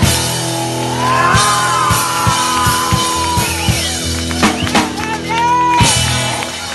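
Rockabilly band playing live: acoustic and electric guitars, upright bass and drums, with held notes under a run of drum hits. A singer's voice whoops over the music near the end.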